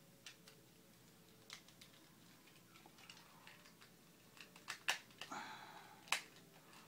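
Faint clicks and light rustling of plastic as a small Smokescreen action figure is handled, a loose part being pressed back into place; the clicks come sparsely at first and bunch together in the second half, the loudest a couple of sharp snaps.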